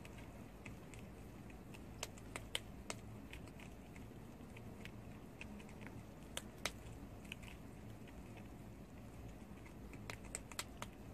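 Prairie dog gnawing a small morsel held in its front paws: crisp little crunches and clicks of its teeth, in clusters about two seconds in, around six and a half seconds, and near the end.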